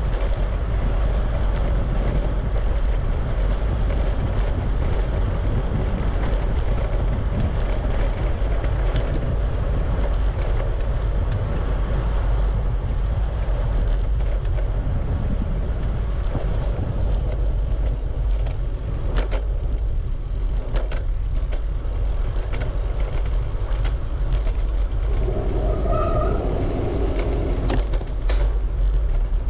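Wind buffeting the microphone and tyre rumble from a bicycle riding along a trail, with scattered sharp clicks and rattles. About 26 seconds in, a short tone sounds above the noise.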